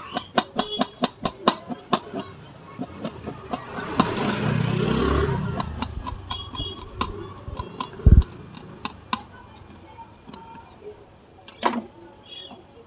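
Knife chopping cabbage on a steel plate lid: quick sharp knocks, about five a second, for the first few seconds, then scattered knocks. About four seconds in, a passing motor vehicle's engine swells and fades, and a single heavy thump comes about eight seconds in.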